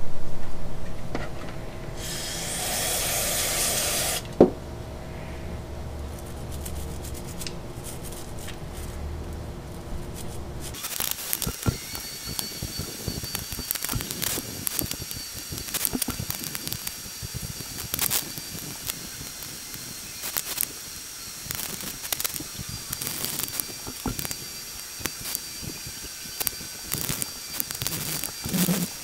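An aerosol spray can hissing in one burst of about two seconds. Later, many light clicks and clinks as small carburetor parts are handled in a plastic tub.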